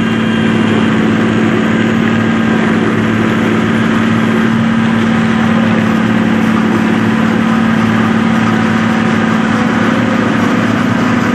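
John Deere self-propelled forage harvester at work, cutting standing maize with its Kemper 360 header. Its engine and cutting gear make a loud, steady drone with one strong, even hum.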